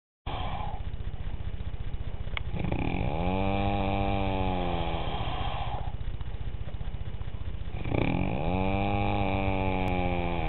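A person snoring with a fast, engine-like rattle likened to a weed whacker. Two long snores come about five seconds apart, each carrying a whining tone that rises and then slowly falls, with the rattle going on between them.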